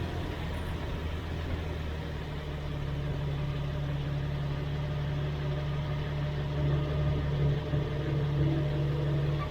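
Jeep Cherokee XJ running with a steady low engine hum.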